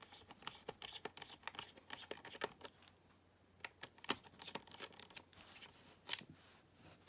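Small screwdriver undoing the screws in the plastic back of a personal cassette player: a scatter of light clicks and scrapes, the sharpest about four and six seconds in.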